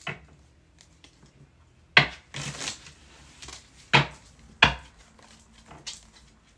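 A deck of cards being shuffled and handled over a table, giving a few sharp taps: one about two seconds in, then two close together about four seconds in, with soft handling noise between.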